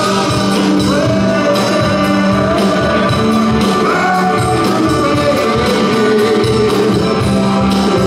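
A band playing live music, loud and steady, with a regular beat and a melody line that slides between notes.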